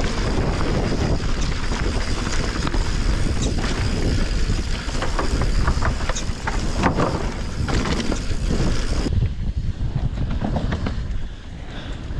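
Wind buffeting the microphone, with tyre and trail noise, as a mountain bike descends a bike-park trail. A steady high-pitched note runs until it cuts off about nine seconds in, and a few sharp clicks and rattles come in the middle.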